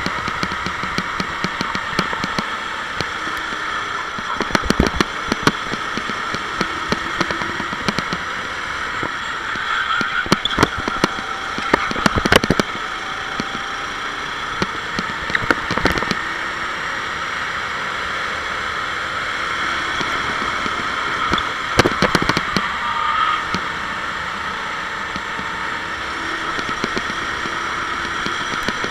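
Sodi SR4 kart engine running hard on track, its pitch rising and falling through the lap, with several sharp knocks and crackles along the way.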